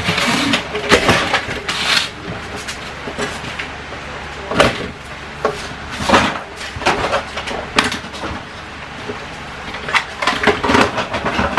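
Clutter being picked up off the floor by hand: irregular clatter and knocks of plastic toys and other odds and ends being handled and dropped, with some rustling.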